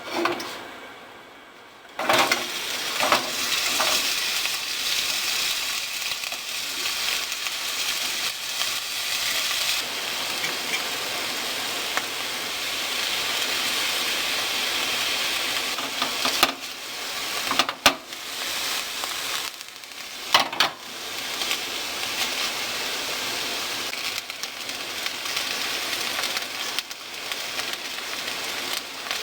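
Food frying in oil in a pan, a steady sizzling hiss. It starts abruptly about two seconds in and breaks off briefly a few times a little past the middle.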